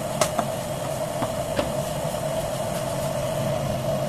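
Water and oil heating toward a boil in a Prestige electric multi-cooker pot: a steady hiss with a low hum, and a few small pops in the first second and a half.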